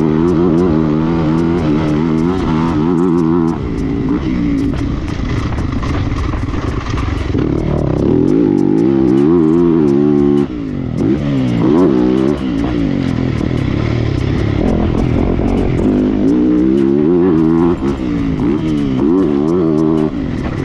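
Yamaha motocross bike's engine revving hard, its pitch rising and falling as the rider works the throttle, with the throttle snapped shut sharply about three and a half, ten and a half and eighteen seconds in.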